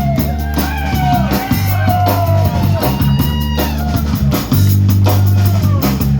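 Live blues band playing an instrumental stretch: electric bass and drum kit keep a steady groove while a guitar plays bending notes over them.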